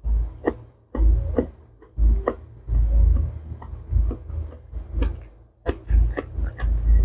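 A person chewing food close to the microphone, with wet mouth clicks and a low thud at each bite roughly once a second.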